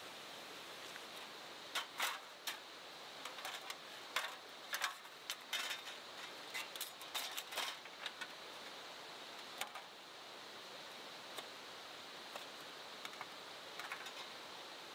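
Steady rush of flowing river water. Over it, a run of sharp light clicks and rattles starts about two seconds in and comes thick for several seconds, then thins to a few scattered clicks near the end, like small hard items being handled.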